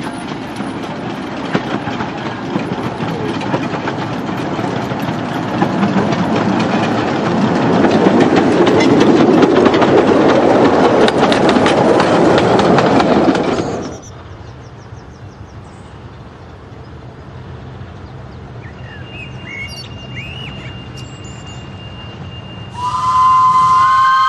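Narrow-gauge steam train running past close by: wheels clattering over the rail joints and coaches rumbling, growing louder to a peak as it goes by. It cuts off suddenly about 14 s in to a much quieter, steady low rumble with a few short chirps, and a steady chord of tones starts near the end.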